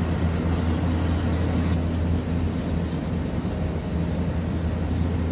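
Steady outdoor ambience with a constant low rumble and no single standout event.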